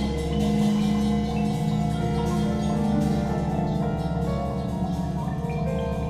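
Percussion ensemble of marimbas and other mallet keyboards playing sparse improvised fragments that overlap into a shifting texture: many ringing pitched notes layered over a steady low sustained tone.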